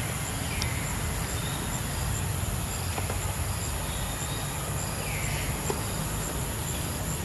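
Outdoor ambience: insects buzzing high and steady with evenly pulsed chirps, over a low rumble. Two faint falling calls come through, about half a second in and about five seconds in.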